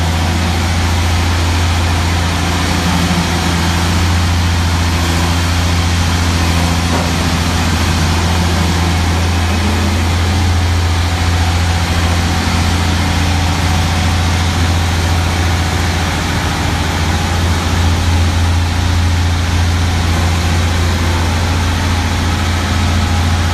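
Diesel engine of a Dynapac CA25 road roller running steadily at idle, a constant low hum.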